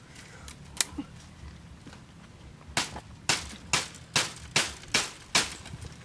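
A knife chopping into grass and roots on the ground: seven sharp strikes, about two a second, starting a little before halfway, after a single click about a second in.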